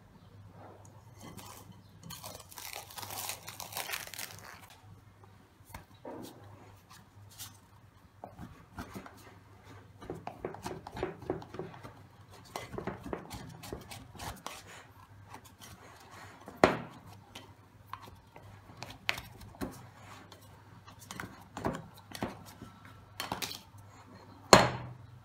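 Cling film peeled off a glass mixing bowl, a crinkly rustle a couple of seconds in. Then a plastic bowl scraper scrapes sticky bread dough from the sides of the glass bowl, with scattered scrapes and a few sharp knocks of bowl and scraper, the loudest about two-thirds through and just before the end.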